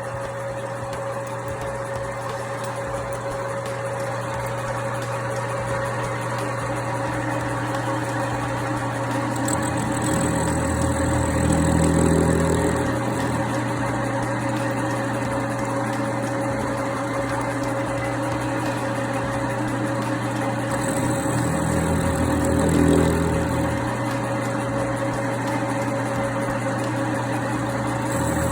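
Metal lathe running with a steady hum, turning a bevel on a steel nut. Twice, a third of the way in and again past two-thirds, the cut grows louder for a few seconds with a high whine. The carbide cutting tool is worn.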